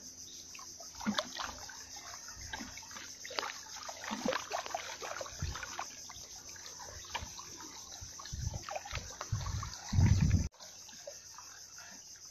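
Small trickling and splashing of shallow water at the shore, with scattered little ticks. Near the end come a few louder low rumbling bumps, which cut off suddenly.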